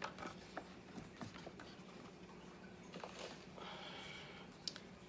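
Faint handling sounds of an eyeshadow palette being taken out and opened: a few small clicks and a short stretch of soft rustling about three seconds in.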